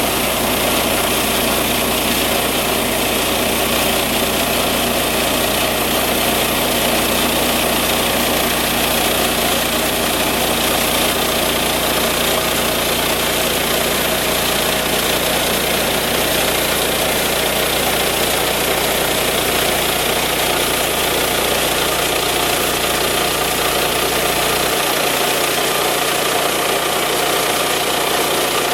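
Band sawmill's engine running steadily as the band blade saws through white oak. Near the end the deepest rumble drops away.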